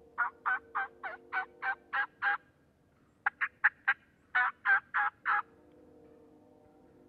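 Turkey call imitating a hen's yelps: a run of about eight evenly spaced yelps, then after a short pause four quick, sharp notes and four more yelps. The hen yelp asks whether any other turkeys are in the area.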